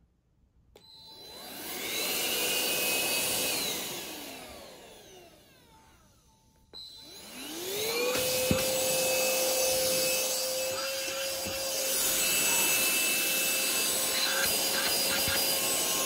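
Motor of an absob cordless handheld car vacuum switched on and spinning up to speed, running for a couple of seconds, then switched off and winding down. A click about seven seconds in starts it again, and it rises to speed and runs steadily.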